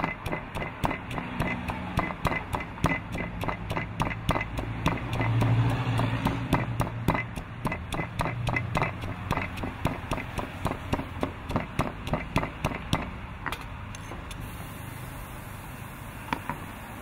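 Stone pestle pounding red chilies and garlic in a granite mortar: quick, even knocks about three to four a second that slow to a few single strokes after about thirteen seconds. A low engine rumble swells and fades underneath around five seconds in.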